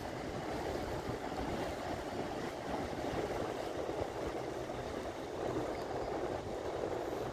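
Steady wash of wind and lapping water at the shoreline, buffeting a phone's microphone.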